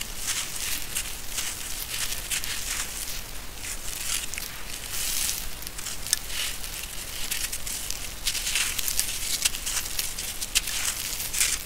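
Dry sand-cement lumps crumbling and being crushed between bare hands: a steady gritty crunching full of small sharp crackles, with loose sand and powder pouring onto a gravelly bed.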